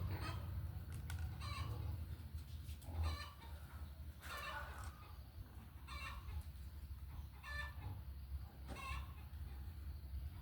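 Short pitched animal calls repeating about every second or so, some eight in all, over a steady low hum.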